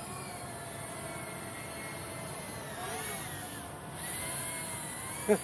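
Small quadcopter camera drone's propellers whining steadily, several pitches together, with the pitch dipping and rising about three seconds in as the motors change speed. A sharp knock comes right at the end.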